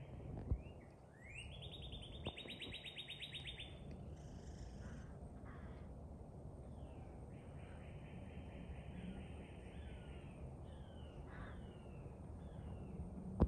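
American crows cawing again and again while mobbing a hawk. Several short falling calls come near the end, over a steady low background noise.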